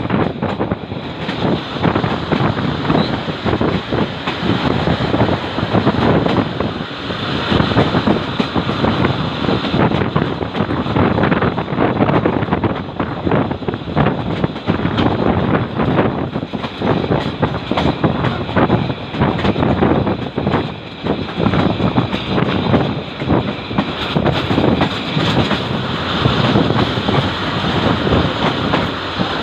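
Passenger train running past on the tracks, its wheels clattering with a dense stream of knocks over the rails.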